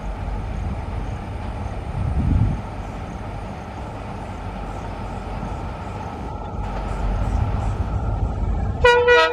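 Twin EMD WDG-4 diesel-electric locomotives, with two-stroke V16 engines, running as they approach hauling a loaded freight train: a steady low rumble that grows louder toward the end. A brief, loud pitched sound cuts in near the end.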